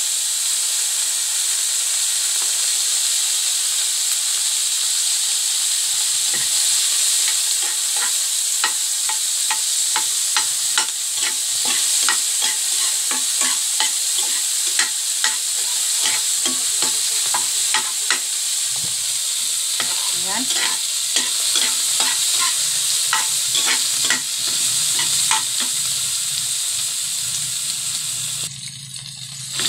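Chopped onions, tomatoes and peppers sizzling in hot oil in a wok, with a metal spatula repeatedly scraping and tapping the pan as they are stirred. The sizzle drops away briefly near the end.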